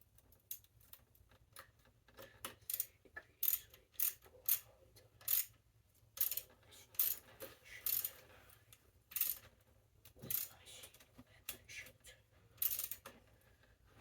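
Irregular metallic clinks and jingles of bicycle parts and tools being handled, one or two sharp ringing clicks a second.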